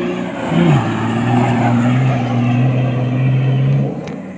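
Off-road 4x4's engine running hard at high revs. Its pitch drops sharply once a little under a second in, then holds steady, and it gets quieter shortly before the end.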